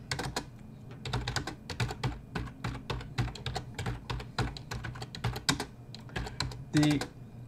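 Typing on a computer keyboard: quick, irregular keystrokes as a line of code is typed.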